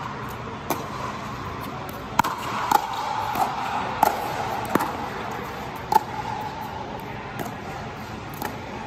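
Pickleball rally: hard paddles striking a hollow plastic pickleball, a string of sharp pops about every half second to a second, each with a brief ring. The hits are sharpest and most frequent in the first six seconds and fainter near the end.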